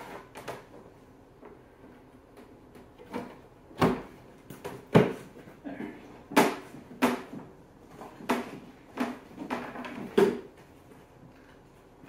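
Hard plastic snowmobile body panels being handled and snapped into place by hand: a string of irregular clicks and knocks, the loudest about four and five seconds in.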